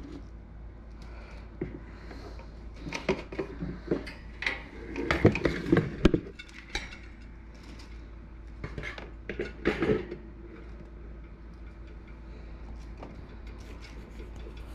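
Metal wire cage and its pans and shelves rattling and clanking as they are handled, in irregular bursts of knocks, loudest about five to six seconds in and again near ten seconds.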